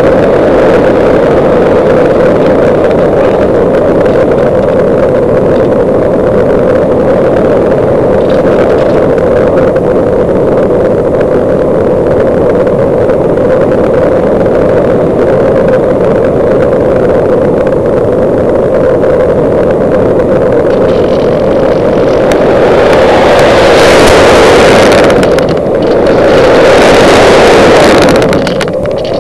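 Parkzone Radian electric glider in flight, heard through its onboard camera's microphone: a steady drone from its electric motor and propeller mixed with rushing air. In the last few seconds a louder airflow hiss swells up, dipping twice.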